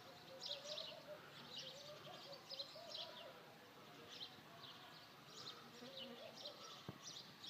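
Faint birds chirping, short high calls repeating one or two times a second, over quiet outdoor background noise, with a single faint click near the end.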